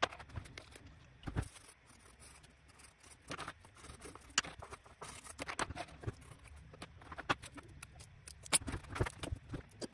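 Colour pencil scratching across paper in short, irregular strokes, with occasional sharp taps and clicks.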